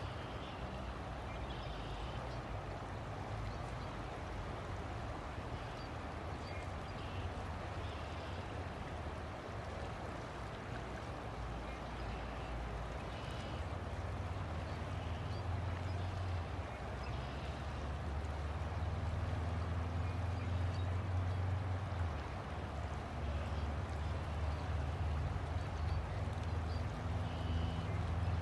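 River water flowing steadily, with a low rumble underneath that grows louder about halfway through.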